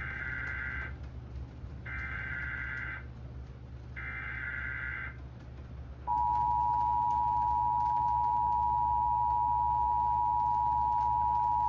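Emergency Alert System tones. Three buzzy, warbling data bursts of the SAME header, each about a second long, are followed about six seconds in by the steady, loud two-tone EAS attention signal. Together they mark the start of a broadcast tornado warning alert.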